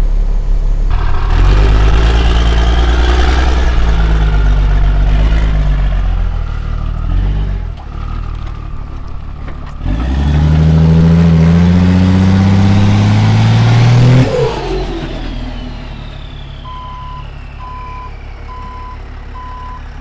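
Heavy diesel truck engine revving hard twice, each time rising in pitch before falling off, as a truck works in deep mud. Near the end a truck's reversing alarm begins beeping, about twice a second.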